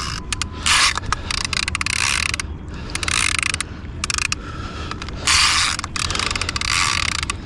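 Conventional fishing reel ratcheting in bursts of rapid clicks while a large hooked sturgeon is fought on heavily set drag.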